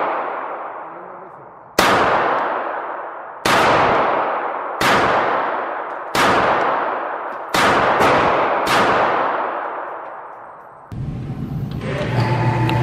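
Walther PPK pistol firing a string of single shots, one every second or so, each with a long ringing decay in an indoor range's concrete bay. About eleven seconds in, a steady low hum begins, from the range's target carrier running the target back.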